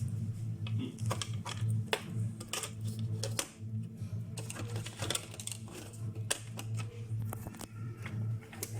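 Irregular sharp clicks and taps, like tools or keys being handled, over a steady low hum.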